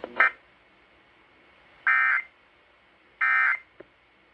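Emergency Alert System end-of-message data tones played over a radio: two short, shrill digital buzzes about a second and a half apart, the signal that closes a broadcast severe thunderstorm warning.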